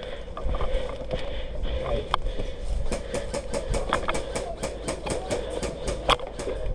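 Airsoft guns firing: a quick run of sharp snapping shots, about five a second, from about three seconds in until just past six seconds. A steady low rumble of wind and movement runs underneath.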